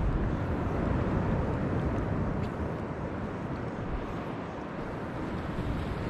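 Steady low rushing noise of wind on the microphone and moving seawater, with a few faint clicks.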